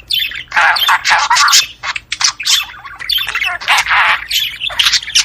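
Budgerigars chattering and warbling, with rapid twittering runs and harsh squawks coming one after another with short breaks between them.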